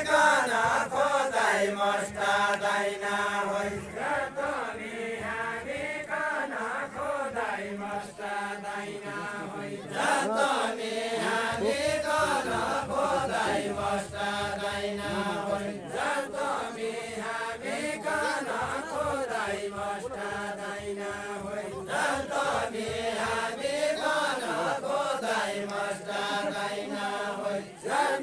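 Deuda, the Far-Western Nepali folk song sung by a line of linked dancers: a group of men singing together in a chant-like melody, phrase after phrase of about two seconds each.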